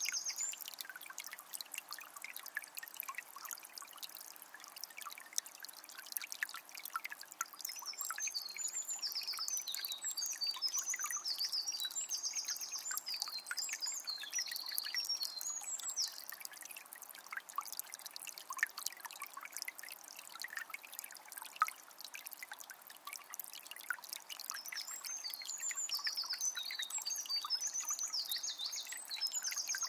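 Forest river flowing with a steady trickling and splashing. A small bird sings high twittering phrases at the very start, for several seconds in the middle, and again near the end.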